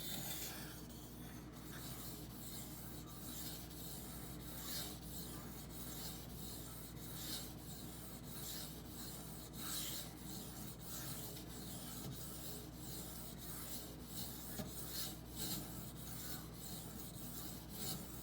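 Steel knife blade (Benchmade Bugout, 20CV) stroked along a wet Norton 4000-grit water stone: a run of short scraping strokes at an uneven pace as steel is ground off the edge.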